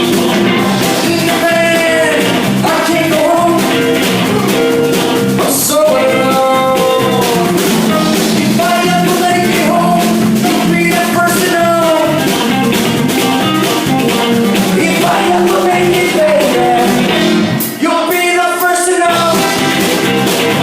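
Rock band playing live: a singer over electric guitar and a drum kit with steady cymbal strokes. The music breaks off for a moment near the end, then carries on.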